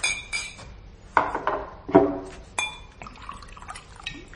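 Glass bottle and drinking glasses clinking as a gin is poured into a glass, several sharp chinks with a short ringing tone.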